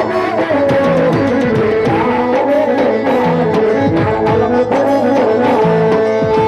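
Devotional aarti music for Ramdev Pir: a gliding melody over a steady drum beat, with held notes underneath.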